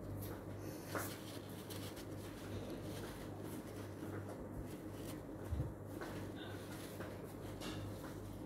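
Paper tissue rubbing against a glass jar, wiping paint off the glass. There is faint rustling, a soft knock about a second in and another just past the middle, all over a low steady hum.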